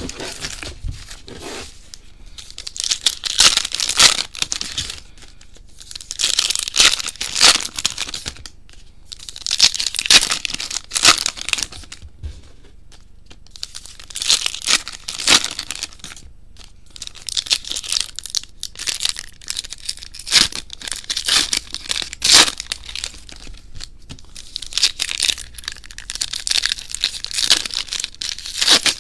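Wrappers of basketball trading card packs being torn open and crinkled by hand, in repeated bursts of a second or two.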